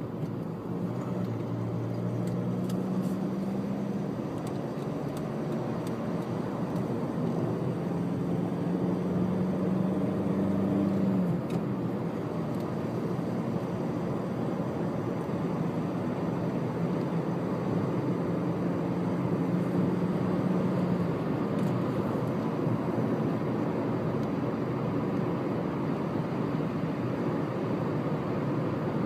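Car driving at speed on a dual carriageway, heard from inside the cabin: steady tyre and road noise with a low engine hum that fades in and out every few seconds.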